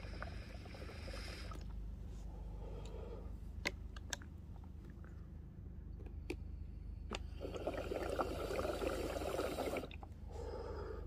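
Water bubbling inside a Puffco Budsy water-bottle bong as a hit is drawn through it. It comes in several bursts, the longest and loudest from about seven and a half to ten seconds in, with a few sharp clicks between the bursts.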